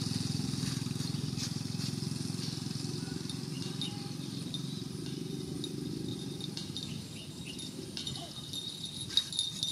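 A low, steady motor-like drone that fades away over the first seven seconds. After it, water splashes and sloshes as water buffalo move and feed in a shallow, reedy pond, with a sharper splash about nine seconds in.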